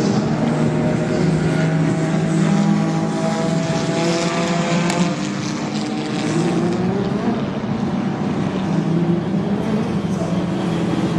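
Racing touring-car engines running hard on the circuit, more than one engine at once, with one pitch rising as a car accelerates about six seconds in.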